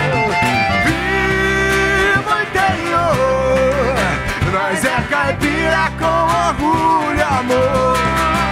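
A band playing an upbeat caipira country song: a man singing over acoustic guitar, accordion, bass and drums.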